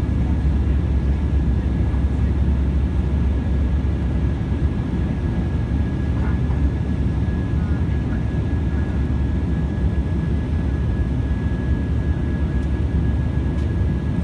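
Steady in-flight cabin noise of an Embraer E195 jet heard from a window seat over the wing: the General Electric CF34 turbofans and the airflow make an even, deep rumble, with a thin steady whine above it.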